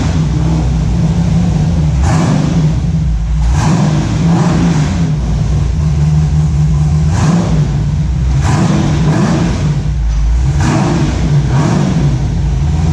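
Sandrail's 6.0-litre LS V8 running, revving repeatedly in short surges every second or two over a steady low hum.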